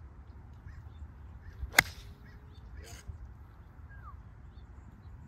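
A golf club striking the ball: one sharp crack nearly two seconds in, with a fainter knock about a second later. The strike is slightly heavy, catching a little ground.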